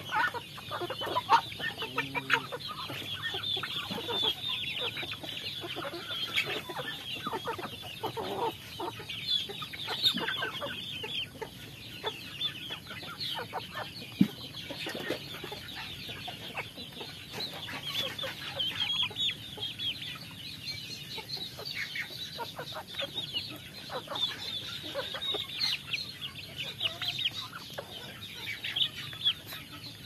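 A flock of young chickens clucking while feeding on grain, with a steady stream of short high-pitched calls.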